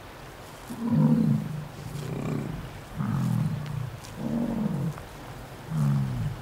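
Yak grunting: five low, deep grunts about a second apart.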